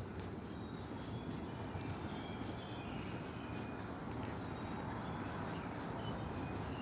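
Small birds chirping and twittering in short, high notes over a steady low background rumble.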